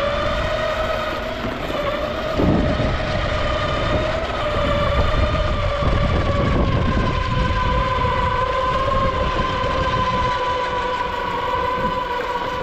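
Ecomobl M24 Pro electric skateboard's motors whining at a steady high pitch with several overtones, the pitch sagging a little midway, over the low rumble of its wheels rolling on a concrete sidewalk.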